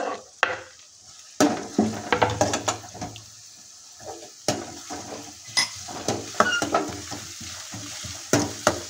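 Chopped onions sizzling in hot mustard oil in a metal kadhai while a steel ladle stirs them, scraping and clinking against the pan. After a quieter first second or so the clinks and scrapes come thick and irregular over a steady sizzle.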